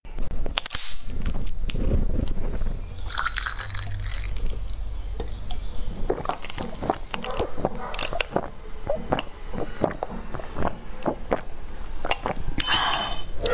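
Close-miked wet mouth sounds of eating: many small smacks and clicks of chewing and sucking. About a second before the end, gulps from a glass.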